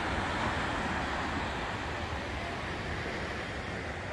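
Wind blowing across the microphone, a steady rushing noise with a fluttering low rumble.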